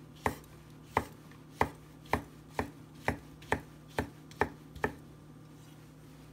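Chef's knife slicing a pheasant back (dryad's saddle) mushroom on a wooden cutting board: about ten crisp strokes, roughly two a second, stopping about five seconds in. The knife goes right through with ease, the sign of tender, non-woody mushroom flesh.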